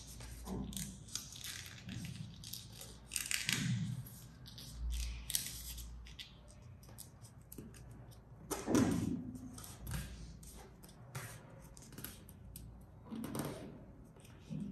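A paper dollar bill being folded and creased by hand: irregular crinkling and rustling of the banknote, with fingers pressing and sliding along the folds, louder in short spurts a few seconds apart.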